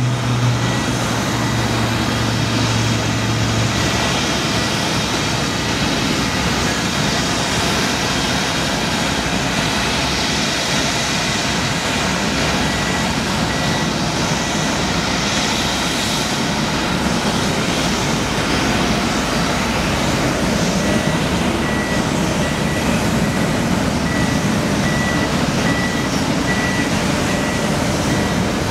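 Steady engine noise of a large rough-terrain forklift moving a cargo pallet, with a high beeping alarm repeating evenly in the last third. A low hum fades out about four seconds in.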